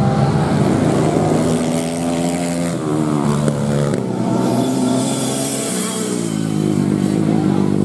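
Racing dirt-bike engines revving hard as the bikes run past on a dirt track. The pitch climbs and drops again and again with the throttle and gear changes, with one falling glide about three seconds in.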